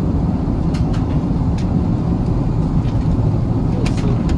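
Steady low roar inside the cabin of an Airbus A380-861 in flight, from its Engine Alliance GP7200 turbofans and the airflow, with a few light clicks.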